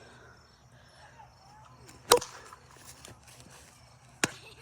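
Plastic wiffle ball bat striking the ball once, a sharp hollow crack about two seconds in, followed about two seconds later by a second, quieter sharp click.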